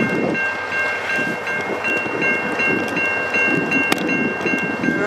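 Level crossing warning bell ringing steadily in rapid repeated strokes, about three a second, over an uneven low rumble.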